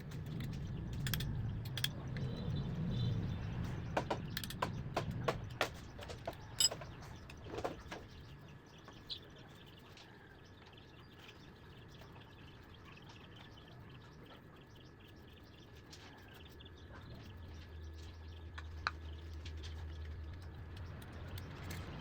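Scattered sharp clicks and light knocks over a low rumble for several seconds, then quieter; a low steady hum comes in near the end.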